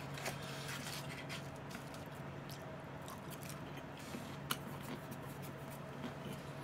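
Faint chewing of crispy fried chicken, with a few soft clicks, one sharper about four and a half seconds in, over a steady low hum.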